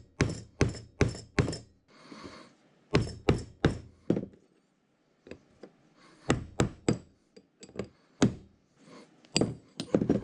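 Brass hammer blows driving a ball bearing off a gear shaft, later struck through a brass punch: sharp knocks in quick groups, about five, a pause, three more, then scattered strikes.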